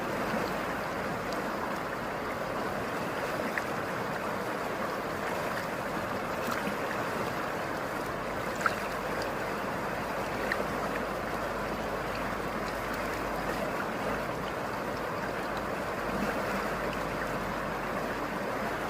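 Çoruh River's water rushing steadily, with a single sharp tick about halfway through.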